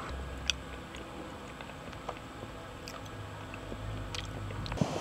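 A person eating cheesecake: quiet chewing with a few light clicks spread through, over a low steady hum.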